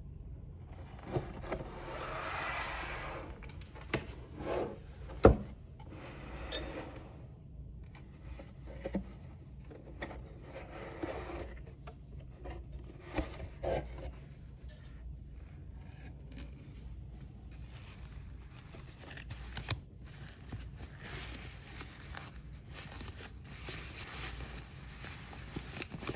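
Cardboard box being handled and opened by gloved hands: cardboard rubbing and scraping, with a few sharp knocks, the loudest about five seconds in. Tissue paper wrapping rustles and crinkles near the end.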